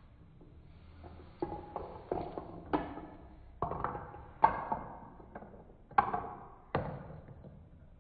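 Marbles running through a plastic marble run: a string of sharp clacks and knocks, each with a short ring, starting about a second and a half in.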